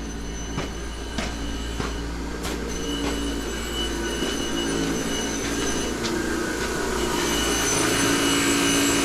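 Grinder grinding the rough plasma-cut edges off metal shims, a steady metallic squealing whine that grows louder near the end.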